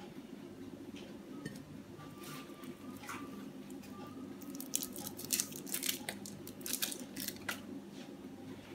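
Crinkling of the foil wrapper on a wedge of processed portion cheese as it is peeled open, in short, sharp crackles that are densest from about halfway through, over a steady low hum.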